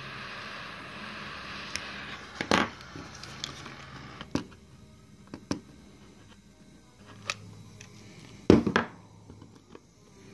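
Small handheld torch hissing steadily as it heats the sheet-metal seam, stopping about two and a half seconds in. Then a series of sharp clicks and knocks from the torch and hot-glue gun being handled, with the loudest knock near the end.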